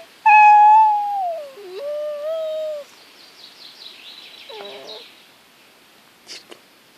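A loud, drawn-out cry that slowly falls in pitch, lasting about two and a half seconds, followed by a faint fast trill of high chirps from small songbirds and a short call near the middle.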